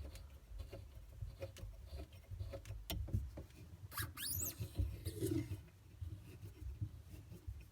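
Under-sink water shutoff valves being turned back on by hand: low rumbling handling noise and small scattered clicks, with a brief high squeak about four seconds in.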